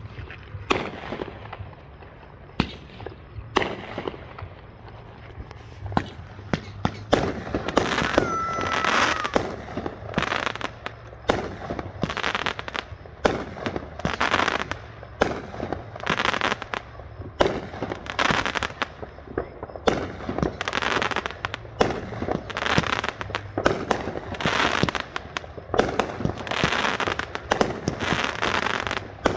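Aerial fireworks shells bursting: a long run of bangs, sparse at first and coming thick and fast after the first several seconds, with crackling stars between them and a brief whistle about eight seconds in.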